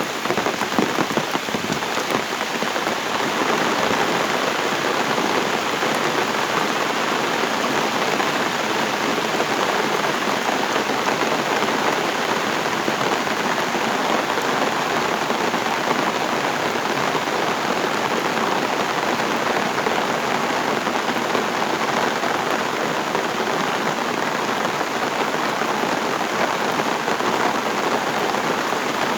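Heavy rain falling steadily, a dense even hiss of drops pattering on surfaces.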